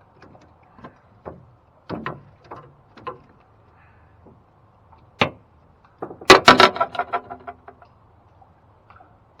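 A string of short knocks and clicks, then, about six seconds in, a loud rattling clatter of rapid clicks lasting over a second.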